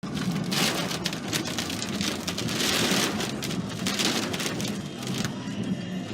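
Rain pattering: a dense, uneven hiss full of small ticks that starts abruptly, over a low steady hum.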